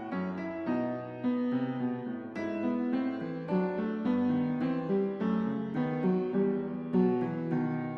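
Background piano music: a steady flow of notes with melody and accompaniment.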